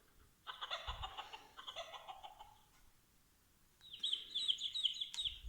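Small speaker of a children's farm sound book playing recorded chicken sounds: a burst of clucking about half a second in, then from about four seconds a run of rapid high chirps.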